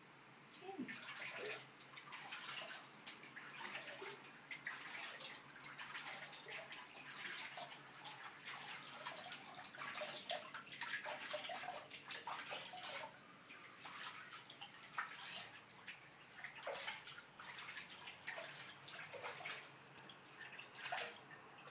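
Water splashing and sloshing in a shallow stainless-steel sink as a cat is washed by hand, in irregular, uneven splashes.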